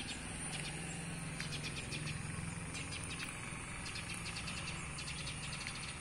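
Outdoor insect chorus: a steady high-pitched drone with bursts of rapid clicking chirps, over a low steady hum.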